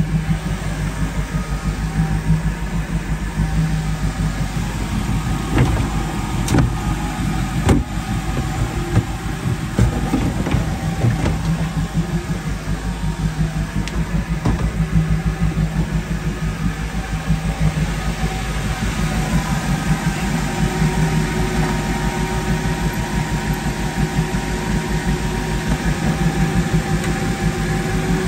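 PCM marine V8 inboard engine in a Nautique ski boat idling steadily, with a worn serpentine-belt tensioner pulley that the owner says is getting worse. A few light clicks come about six seconds in.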